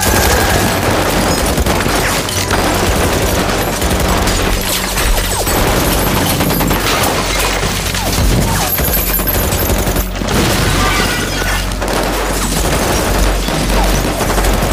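A dense, continuous barrage of automatic gunfire, shots overlapping without a break, with a brief lull just after ten seconds in.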